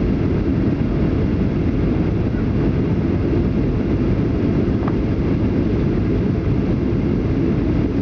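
Steady cabin noise of a Ryanair Boeing 737-800 descending on approach to landing: a low, even rumble of engines and rushing airflow, heard from inside the passenger cabin.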